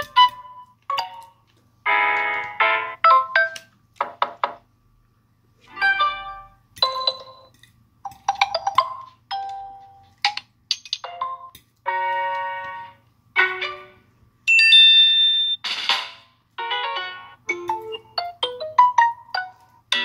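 Samsung Galaxy A3 (2017) phone speaker playing its notification sounds one after another: a string of short chimes and jingles, each a second or less, with brief pauses between them.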